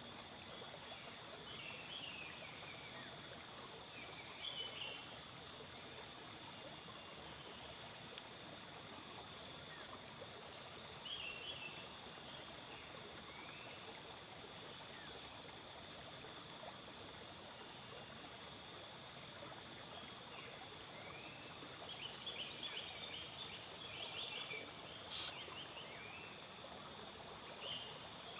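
Insects droning steadily at a high pitch, with runs of fast cricket-like chirping every few seconds. Short bird calls sound here and there, with a cluster of them a little past the three-quarter mark.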